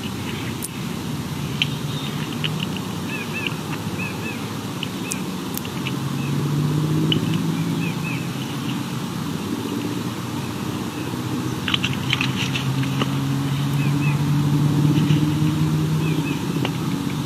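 A low engine hum, as from a distant motor vehicle, swells about six seconds in and again from about twelve seconds. Faint short bird chirps and a few sharp clicks sound over it.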